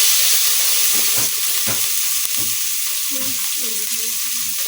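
Frying in a pan of hot oil: a loud sizzle that starts suddenly as food goes into the oil and then holds steady, with a few light knocks from stirring.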